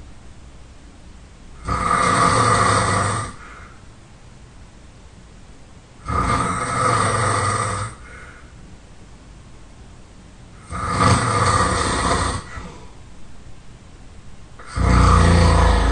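A person snoring loudly in a steady rhythm: four long snores, each about a second and a half, coming roughly every four and a half seconds. Each snore is followed by a brief fainter breath.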